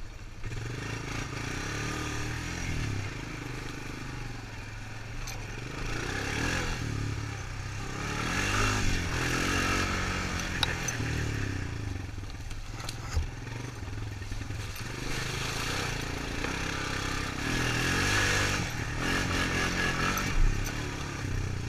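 Honda Recon 250 ATV's single-cylinder four-stroke engine running under way, its pitch rising and falling as the throttle is opened and eased. A few sharp knocks and some clatter come from the machine bouncing over rough ground.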